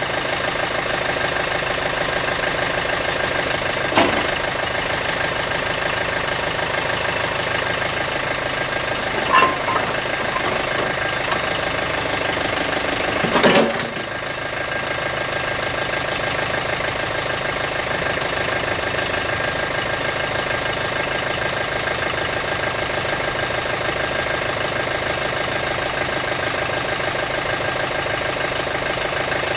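John Deere 110 backhoe loader's diesel engine running steadily while the backhoe boom, bucket and stabilizers are worked hydraulically. Three sharp clunks come about 4, 9 and 13 seconds in, the last the loudest.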